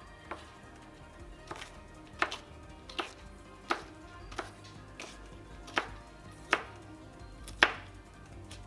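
Knife chopping bell pepper on a cutting board: about ten sharp single strokes, each under a second apart, the loudest near the end.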